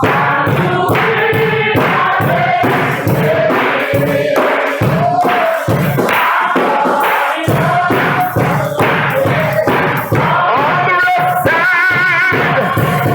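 Choir and congregation singing a gospel song with instrumental accompaniment, loud and steady, with some voices holding notes with vibrato.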